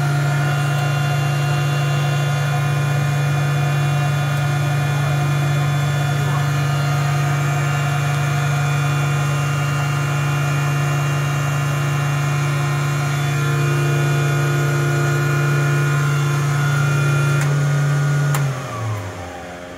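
Turbine Otter's GE H80 turboprop engine and propeller idling steadily with a strong low hum and a higher whine. Near the end the pitch slides down and the sound fades as the engine is shut down at the dock.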